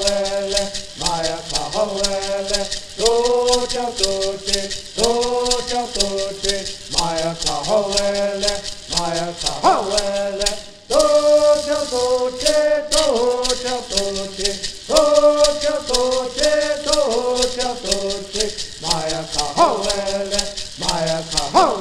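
A group of men sings a traditional bird song in unison over the fast, steady shaking of gourd rattles. Singing and rattling break off briefly about eleven seconds in, then start again.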